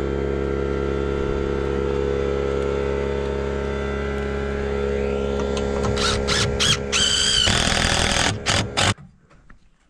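Cordless driver running steadily as it drives a long screw through a metal bracket into the foot of a timber post, turning louder and choppier in the last few seconds before it stops suddenly about nine seconds in.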